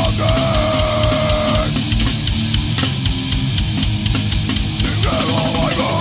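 Death crust band playing an instrumental passage: distorted guitars and bass over fast, dense drums. A long held high note sounds over it near the start and again near the end, sagging slightly in pitch.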